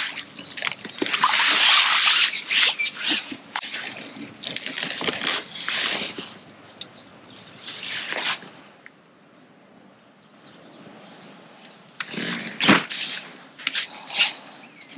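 Water splashing as a hooked skimmer bream is drawn into a landing net, in rough bursts over the first several seconds, with small bird chirps. Near the end come a few sharp knocks as the landing net and its pole are handled on the tackle.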